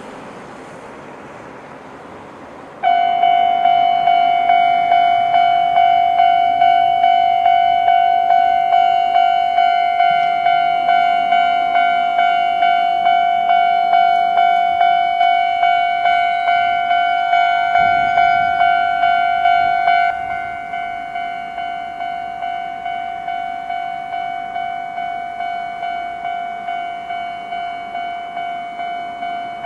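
Japanese railway level-crossing alarm cutting in about three seconds in: an old-type electronic crossing bell pulsing one tone at a fast tempo, about two strikes a second. It drops in volume about two-thirds of the way through and keeps sounding.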